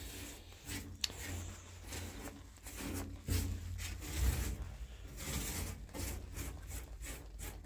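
A brush dabbing and rubbing liquid remover onto old sound-deadening on a car's metal floor pan, in irregular short strokes.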